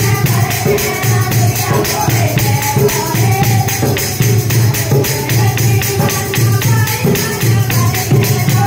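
Women singing a Haryanvi laguriya bhajan together to a steady beat on a hand-played dholak, with jingling percussion throughout.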